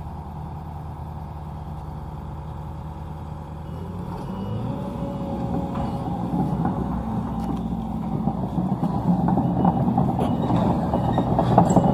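Sumitomo hydraulic excavator's diesel engine running steadily, then growing louder and rougher from about four seconds in as the machine works.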